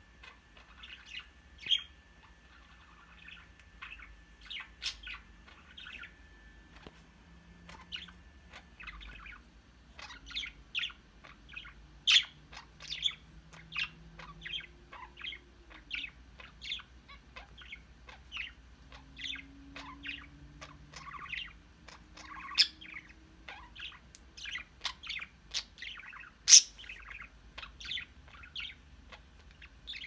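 Budgies chirping and chattering: a string of short, sharp chirps, sparse at first and coming thick and fast after about ten seconds, with one especially loud chirp near the end.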